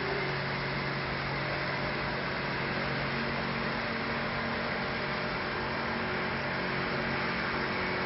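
Outboard motor of a small motorboat running at speed, a steady drone holding one pitch over a background hiss.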